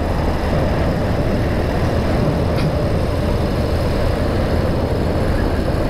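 BMW R65's air-cooled 650 cc boxer twin running steadily while the motorcycle is ridden, with a low rumble under a constant rush of wind and road noise.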